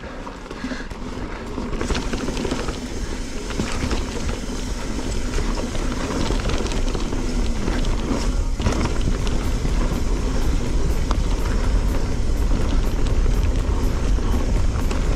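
Wind rumble on the camera microphone and tyre and frame rattle from a full-suspension mountain bike riding fast down a dirt singletrack trail, growing louder over the first few seconds as speed builds.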